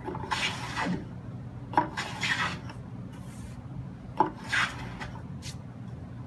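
Short rasping strokes of a small hand plane along the edge of a hardwood panel, rounding over the edge radius. There are three clear strokes, each starting with a light tap and ending in a brief swish, plus a short fourth near the end.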